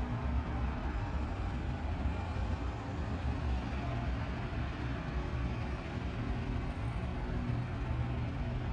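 Steady low rumble of distant boat engines across open water, with faint steady engine hum over a wash of background noise.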